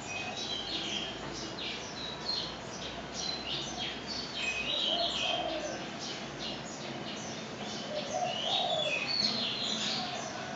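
Small birds chirping in a steady stream of short, high calls, with a dove cooing twice, about halfway through and again near the end.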